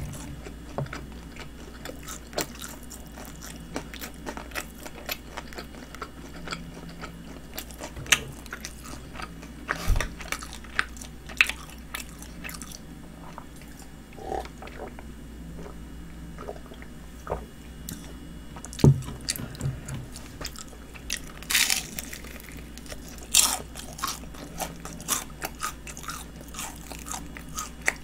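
Biting, crunching and chewing crispy honey-glazed fried chicken, with sharp crackly bites scattered throughout and a few louder crunches past the middle.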